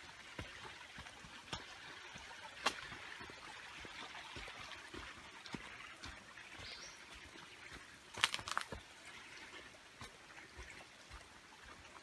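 Footsteps of a hiker on a dirt forest trail, scattered crunches with a quick run of louder ones about eight seconds in, over a faint steady hiss.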